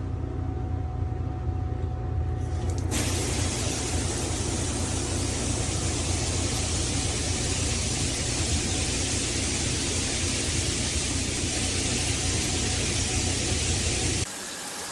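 Water spraying steadily from a GURIN 6-inch rain shower head, a continuous hiss with a deep rumble under it, turning brighter and hissier about three seconds in.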